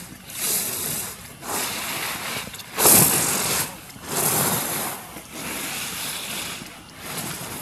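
Slalom skis scraping across hard-packed snow in a series of surges, about one a second with each turn, the loudest about three seconds in.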